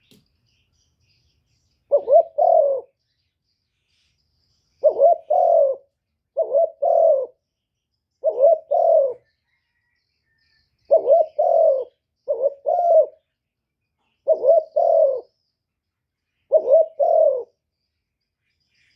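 Spotted dove (cu gáy) cooing: a decoy call with short phrases of two or three low coos, repeated about eight times with pauses between.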